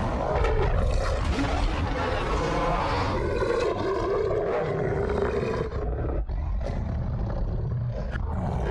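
Continuous, drawn-out beast roaring and growling, a werewolf roar from a horror soundtrack.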